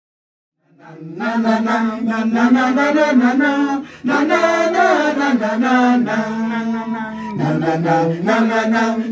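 A group of voices chanting a song together, starting about a second in after silence, with a brief break about four seconds in.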